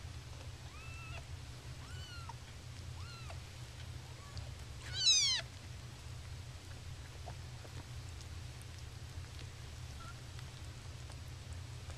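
Kittens meowing: four or five small, high mews in the first few seconds, then one louder meow about five seconds in. A steady low hum runs underneath.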